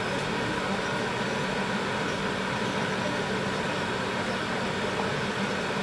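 Tteokbokki sauce boiling and bubbling in a wide pan, under a steady mechanical hum with an even low drone.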